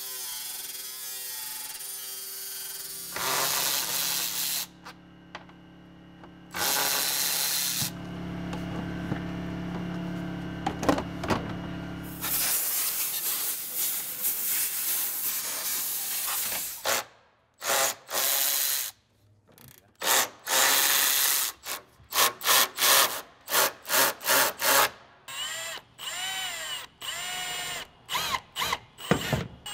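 Power tools working on a Jeep's fender bodywork. Over the first half an angle grinder runs against the sheet metal in long noisy stretches. In the second half a Milwaukee M18 Fuel cordless drill runs in many short trigger pulls, its motor whine rising and falling with each one.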